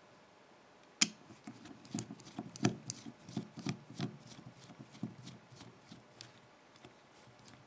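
One sharp metallic click about a second in, then a run of irregular small clicks and rattles as an opened padlock and lock-picking tools are handled.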